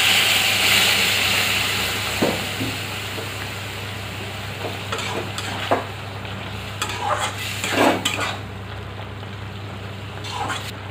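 A curry in a metal kadai sizzling loudly as hot water hits the hot oil and spice paste, the hiss dying down over the first couple of seconds into a quieter simmer. A metal spatula then scrapes and stirs against the pan several times.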